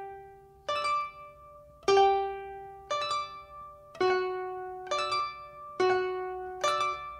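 Music: a slow melody of single plucked-string notes, about one a second, each ringing out and fading.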